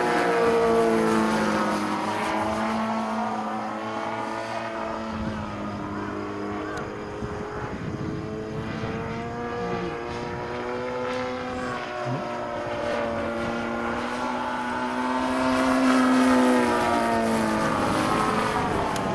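Radio-control model airplane flying overhead, its propeller motor note gliding up and down in pitch as it passes and manoeuvres, loudest about a second in and again around sixteen seconds.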